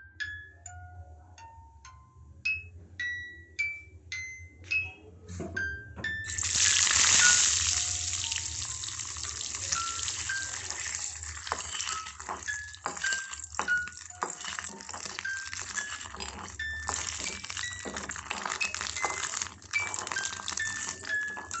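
Light background music of spaced, plucked bell-like notes. About six seconds in, a loud steady rushing hiss with many small crackles joins the music and carries on under it.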